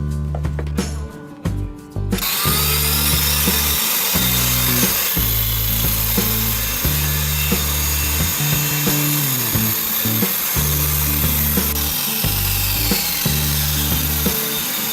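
Background music with a steady bass line; about two seconds in, an electric power tool starts up, its whine rising as it spins up, and runs on wood for the rest of the stretch.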